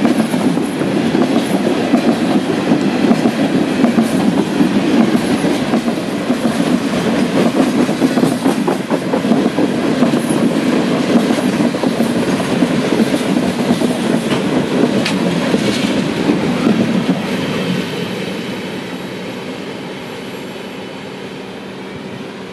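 Freight train of refrigerated boxcars passing close by: a steady rumble with wheels clattering over the rail joints, fading over the last few seconds as the end of the train moves away.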